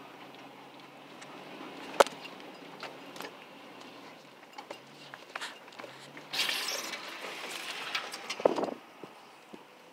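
Faint off-road vehicle engine running in the distance, under sharp clicks and knocks of the phone being handled, the loudest about two seconds in and another near the end. There is a brief rush of noise about six seconds in.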